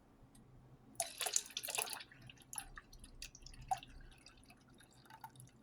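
Liquid being poured into a mixing container for about a second, about a second in, then scattered drips and small splashes.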